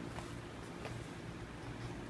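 Padded racket bag being handled: a faint rustle with two light scuffs, about a fifth of a second and just under a second in, over a steady low hum.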